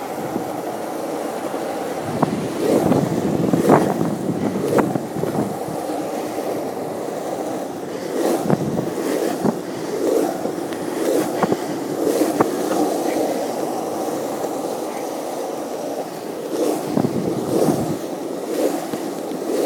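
Skateboard wheels rolling along a wet street: a steady rumble broken by occasional sharp knocks.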